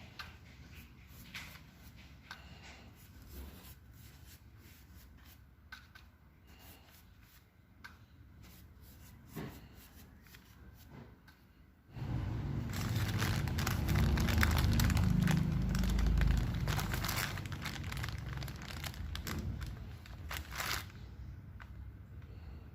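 Crinkling and rustling handling noises with scattered small clicks. About twelve seconds in they turn much louder and closer, with a low rumble, for roughly nine seconds, then ease off.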